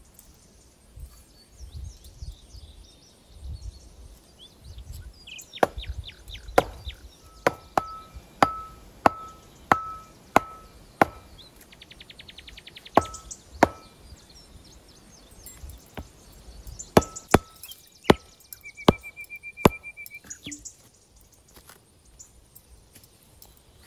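Wood being chopped with an axe: runs of sharp strikes, roughly two a second, with short pauses between runs, many strikes leaving a brief metallic ring.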